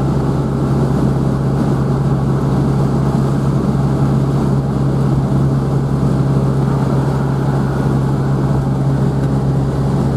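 1953 Opel Olympia Rekord's 40-horsepower engine and drivetrain running steadily at speed, a loud, even low drone that holds one pitch throughout.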